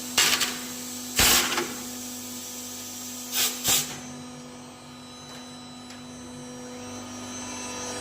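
CNC router for UPVC running with a steady electric hum, broken by four short bursts of noise in the first four seconds. Near the end the machine noise slowly builds.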